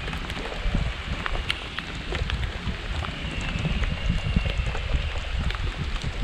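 Raindrops pattering in scattered sharp ticks over a gusty low rumble of wind on the microphone, with a faint high steady tone in the background.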